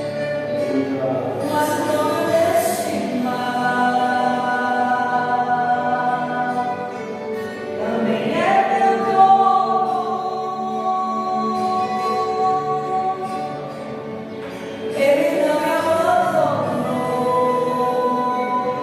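A choir singing a gospel hymn in long held notes over band accompaniment. Three phrases each swell in, about a second and a half in, midway and near the end.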